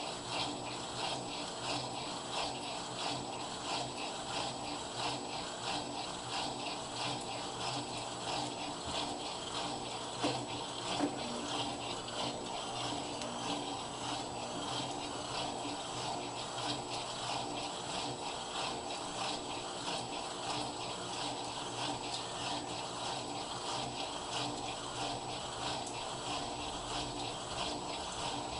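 Electrolux washing machine running mid-cycle: a steady motor hum under water and laundry churning in a quick, even pulsing rhythm.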